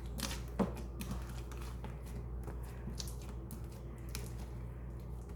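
Homemade beaded slime being stretched and squished by hand, giving irregular small clicks and crackles.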